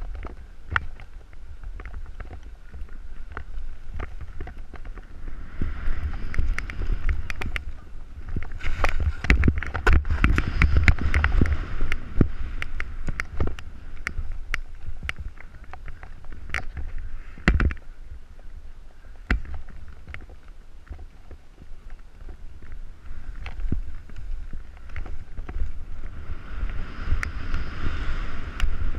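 Snowboard sliding and carving over chopped-up, tracked snow, its edge scraping in swells of hiss, with low wind rumble on the GoPro microphone. Sharp clicks and knocks run throughout, the loudest about two-thirds of the way through.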